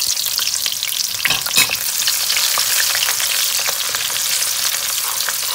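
Sliced onions frying in hot oil in a wok, a steady sizzle with crackles, stirred with a wooden spatula.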